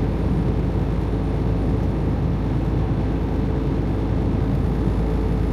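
Semi-truck cab interior while driving at highway speed: a steady low engine drone with tyre and road noise.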